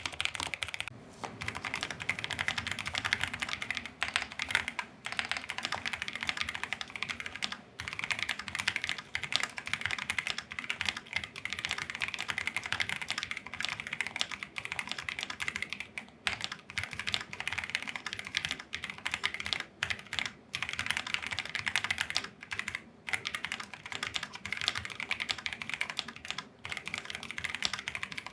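Fast, continuous typing on a Keychron Q3 mechanical keyboard fitted with test keycaps: a dense stream of key clacks with a few short pauses.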